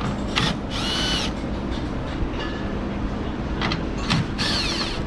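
Cordless drill driving a 10 mm socket to back out the tail lamp's mounting screws. The motor whines in short runs, one about a second in and another near the end, with a few brief blips between.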